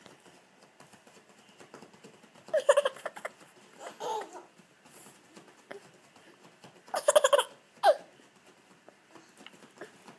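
A toddler laughing in several short, high-pitched bursts, with quiet gaps between them.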